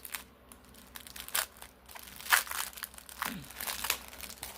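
Small plastic bags of diamond painting drills crinkling as they are handled, in scattered rustles, the loudest about two and a half seconds in.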